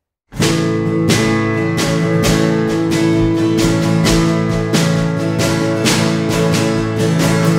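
Acoustic guitar strumming a steady rhythm over held keyboard chords, the music starting suddenly a moment in after silence: the opening of a worship song.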